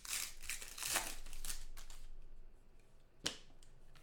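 Plastic trading-card pack wrapper crinkling and tearing as it is opened and the cards are handled, dying down after about two seconds. One sharp snap or click near the end.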